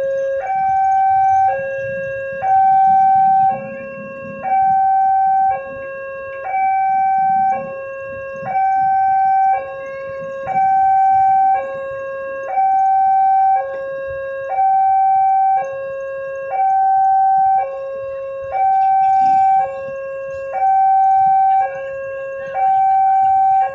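Electronic warning alarm of a railway level crossing, sounding while the barrier is down for an approaching train. It alternates between a lower and a higher tone, about a second each, in an even repeating cycle.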